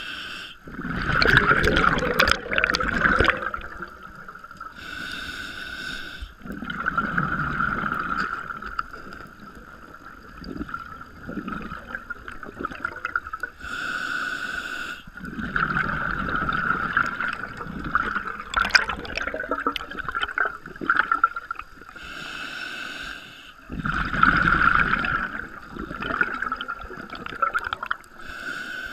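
Scuba diver breathing through a regulator underwater, about four breaths: each a short hiss on the inhale, then a few seconds of bubbling as the exhaled air vents.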